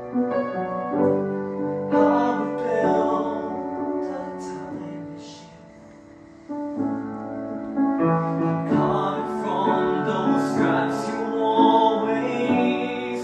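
Grand piano playing a slow, sustained passage of chords; the playing dies away about six seconds in, then a fresh chord comes in and it builds again.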